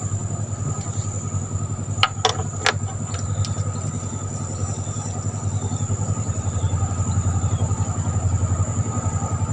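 A small engine running steadily with a fast, even pulse, growing slightly louder, with a few sharp clicks about two seconds in.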